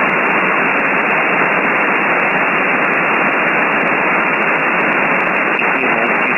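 Shortwave radio static: a steady hiss with the treble cut off sharply, from an RTL-SDR receiver in upper-sideband mode on the 20-metre amateur band. It is the sound of an open frequency with nobody transmitting.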